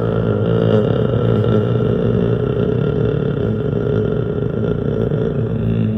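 ACA Penetrator P-50 outdoor warning siren, a 50 hp motor-driven rotating siren, sounding its attack signal: a loud, low siren tone holding a near-steady pitch over a heavy motor rumble.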